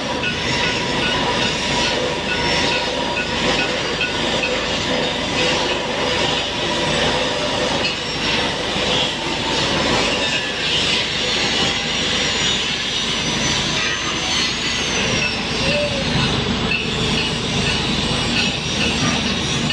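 Shielded metal arc (stick) welding on a large steel pipe joint: a steady, dense crackle from the burning electrode.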